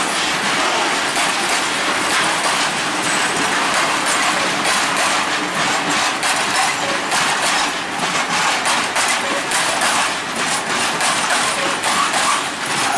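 Freight train of open-top coal wagons rolling past close by: a steady rumble of steel wheels on rail, with repeated clicks as the wheels cross rail joints.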